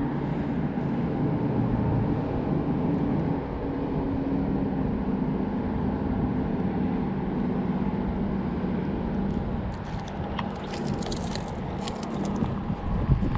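Steady engine hum from a motor, with a rumble of wind on the microphone; a quick cluster of sharp clicks and rattles comes about ten to twelve seconds in.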